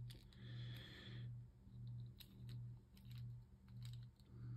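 Faint clicks and scrapes of a small precision screwdriver turning a tiny screw into a plastic Beyblade spin track, over a low hum that pulses about every two-thirds of a second.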